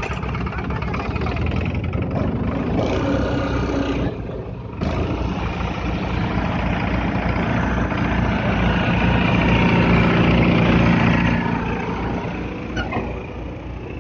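Small diesel tractor engine running steadily under field work. It dips briefly about four seconds in, grows louder past the middle, then eases off near the end.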